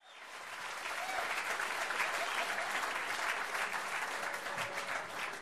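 Audience applauding, fading in over the first second and then holding steady.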